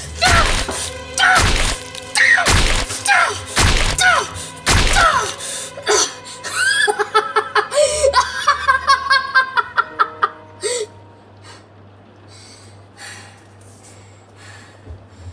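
A person laughing gleefully in short rhythmic ha-ha pulses around the middle, after about five loud, evenly spaced hits in the first few seconds. A low steady hum runs underneath and carries on alone after the laughter stops.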